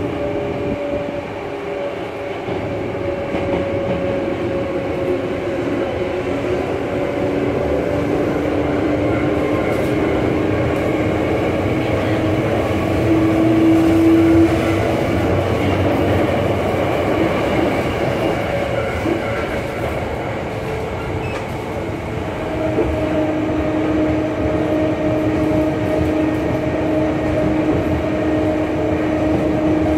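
Hankyu subway train car with GTO VVVF inverter control, heard from inside the car: steady running rumble of wheels on rail, with the inverter's motor whine. The whine fades out about halfway through and comes back near the end.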